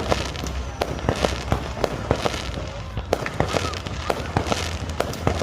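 Fireworks and firecrackers going off: many sharp bangs at uneven intervals, with bursts of hissing between them.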